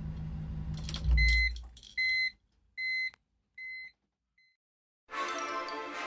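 BMW E46 engine idling, then switched off about a second in with a heavy low shudder as it stops. A short electronic beep then repeats about every 0.8 s, each fainter than the last, and music begins near the end.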